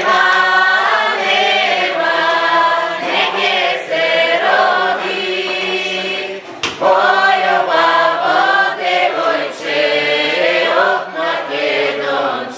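A group of women singing a Bulgarian folk song together, holding long notes. There is a short break with a click about six and a half seconds in.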